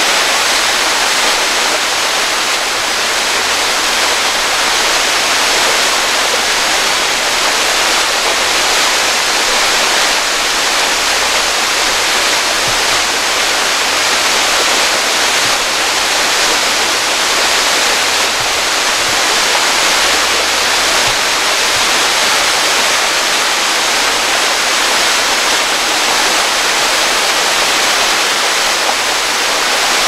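Waterfall: a loud, steady hiss of water falling down a rock face and splashing onto the rocks below.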